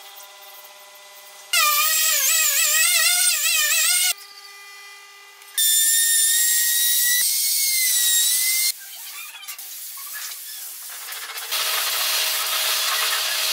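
Power tools running in short, separate bursts, each with a different whine. The burst in the middle is a handheld trim router cutting along the edge of a hardwood frame, a high, steady whine. Near the end comes a rougher, hissing grind.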